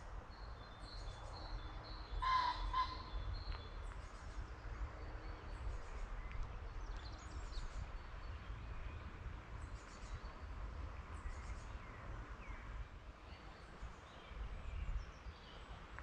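Wild birds calling in spring woodland: small birds chirp and trill again and again, with one louder, harsh call about two seconds in, over a low steady rumble.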